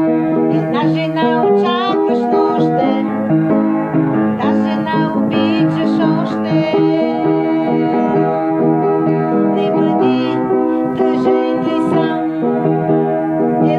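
Keyboard playing a continuous run of piano-voiced chords, with a woman's singing voice with vibrato coming in over it at times.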